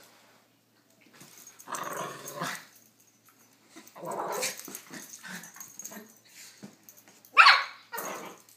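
Two dogs play-fighting, growling in bursts, with two short, sharp barks near the end.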